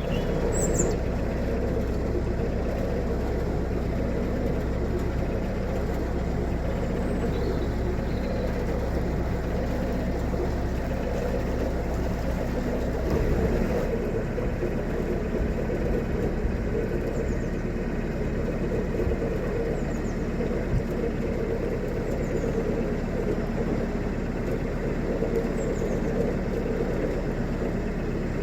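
Narrowboat diesel engine running steadily as the boat cruises, a low continuous hum; its note shifts slightly about 13 seconds in.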